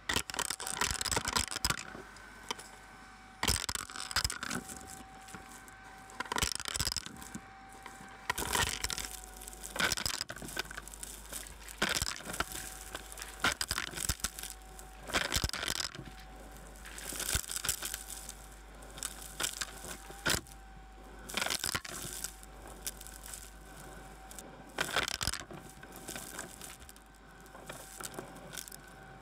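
Vacuum cleaner running with a steady motor whine while its crevice tool sucks up fluff and small debris from carpet; bits and coins crackle and rattle up the hose in loud irregular bursts.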